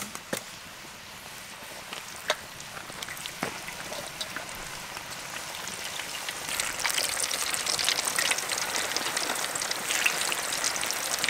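Flour-coated chicken wings deep-frying in a wok of hot oil: a crackling sizzle that grows louder from about halfway through as more pieces go into the oil. A sharp click right at the start.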